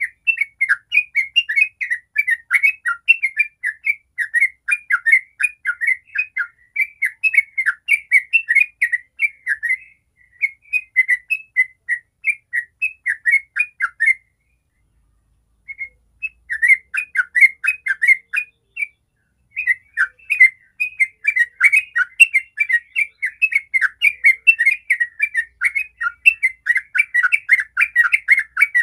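Yellow-vented bulbul singing a fast, continuous run of bubbling, chattering notes, with a pause of about a second and a half near the middle.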